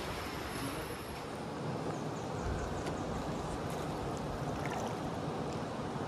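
Shallow river rushing over stones around a narrow boat, a steady rush of water that grows fuller from about two seconds in, with some wind on the microphone.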